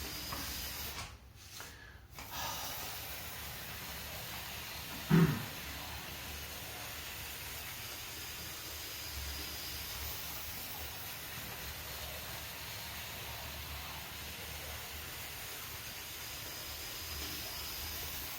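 Hornby Jinty model tank locomotive running around the track: a steady, faint running noise of its small electric motor and wheels on the rails. One short thump about five seconds in.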